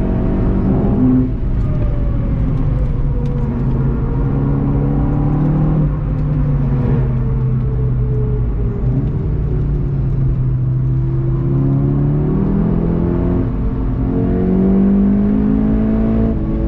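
Volkswagen Golf GTI TCR's turbocharged 2.0-litre four-cylinder engine running hard at lap pace. Its note sinks through the middle as the car slows, then rises again over the last few seconds under acceleration.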